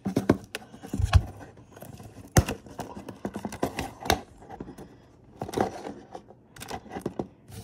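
Plastic multi-disc DVD case being opened and its hinged disc trays handled: a string of sharp plastic clicks and snaps, with a dull knock about a second in.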